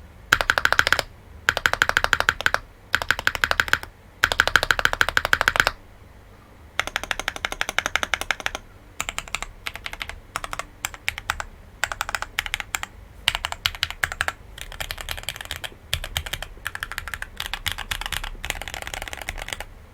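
Custom Cycle7 aluminium-case mechanical keyboard with Gateron Oil King linear switches and ABS keycaps being typed on fast, in bursts of rapid keystrokes with short pauses between them. The bursts are louder in the first six seconds, then softer for the rest.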